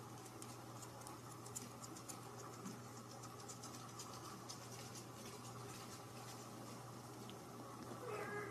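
Faint light scratching and ticking, many small irregular clicks, over a steady low hum, with a short pitched squeak near the end.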